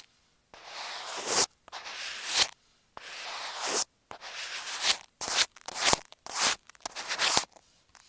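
Close-up scratching and rubbing on masking tape stuck over an Apple EarPods earphone microphone, heard straight through that microphone. Three strokes of about a second each come first, then quicker, shorter strokes from about halfway.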